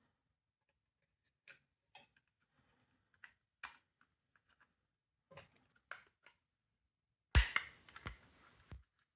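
Small plastic clicks and taps from a smoke detector being taken apart by hand, then a loud sharp crack about seven seconds in, followed by a few quick clicks.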